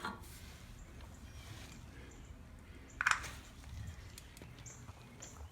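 Quiet handling of the lawnmower's old gas tank as it is opened for a look inside, with one short scrape about three seconds in.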